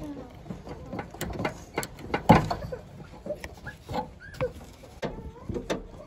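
Scattered clicks and knocks of hands working the lock cables and plastic clips inside a Ford Transit's rear door, with the loudest knock about two seconds in.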